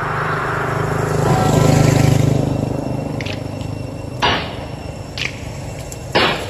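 Edited-in background music: a held low chord swells to a peak about two seconds in and fades, then sharp percussive hits land about once a second.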